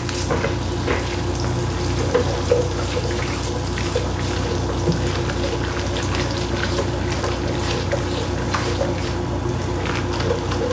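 Diced onions sizzling in melted butter in a skillet over a medium-high gas flame, a steady sizzle with small crackles and pops throughout.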